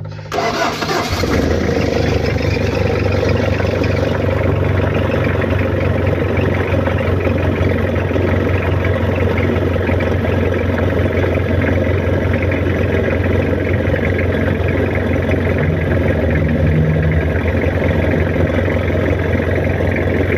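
Mitsubishi L300 engine starting up: a sudden loud burst as it catches, then running steadily from about a second in.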